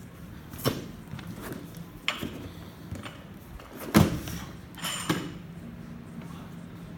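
Loaded barbell with rubber bumper plates being handled and shifted: four sharp knocks and clanks of plates and bar, the loudest about four seconds in, the last with a brief metallic ring.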